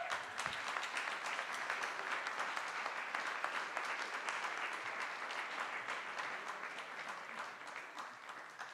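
Audience applauding, with many hands clapping at once. It starts at full strength and slowly dies away over the last few seconds.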